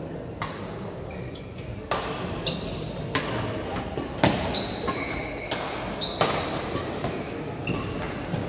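A badminton rally: rackets hit the shuttlecock about once a second with sharp cracks that echo around a large sports hall. Short high squeaks of court shoes on the synthetic floor come between the hits.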